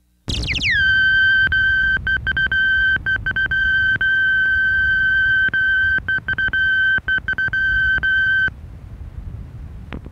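A long, steady electronic beep tone played back from an answering-machine cassette on a cassette deck. Its pitch slides down at the very start, it flickers out in many brief dropouts, and about eight and a half seconds in it stops, leaving tape hiss with a few faint clicks.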